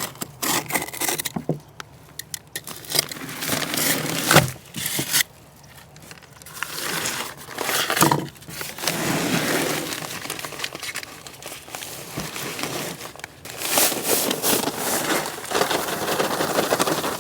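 A paper sack of concrete mix being handled and torn open, crinkling and tearing in irregular bursts.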